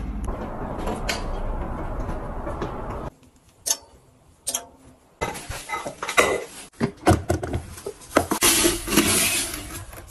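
A steady rustling noise that cuts off suddenly about three seconds in, then the clatter and knocks of a rice cooker's metal inner pot being handled, and a grainy rustle of a scoop digging into rice in a plastic rice storage bin near the end.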